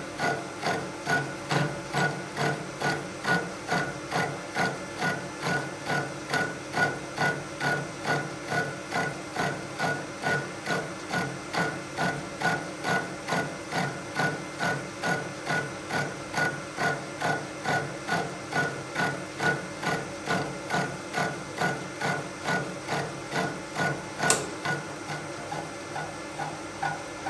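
Sheldon Vernon horizontal milling machine taking a slotting cut with a quarter-inch side cutter on its arbor. The cut pulses in an even beat of about three a second, which is the sign of the cutter running a little off center, from either the cutter being off or the arbor bent slightly. A sharp click comes near the end, after which the beat grows fainter.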